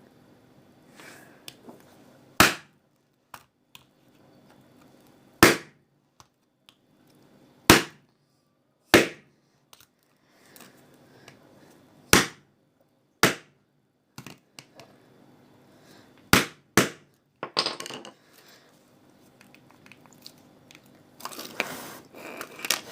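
A mobile phone struck hard over and over to break into it: about eight loud, sharp blows a second to three seconds apart, with smaller knocks and rattles of loose pieces between them, and some scraping and handling of the broken phone near the end.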